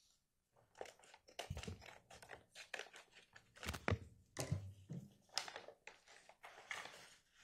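Plastic evidence bag crinkling and rustling as it is opened and looked through, with a few dull knocks from the empty handgun magazines inside.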